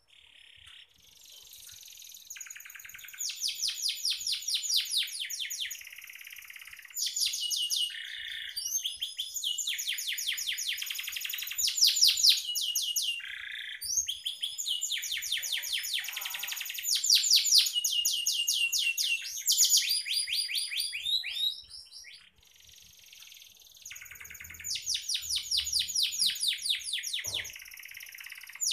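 Domestic canary singing: phrases of very rapid trills of repeated high notes, each a few seconds long with short breaks between, and one longer break about three quarters of the way through.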